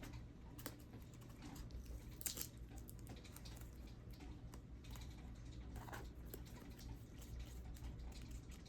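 Faint crinkling and clicking of a small plastic package being opened by hand, its tape being picked and peeled, with a few sharper ticks.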